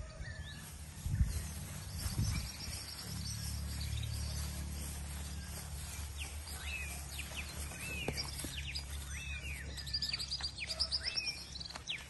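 Small birds singing and chirping, with many short rising-and-falling calls and a few fast trills, busiest in the second half, over a steady low rumble. There are two dull thumps in the first few seconds.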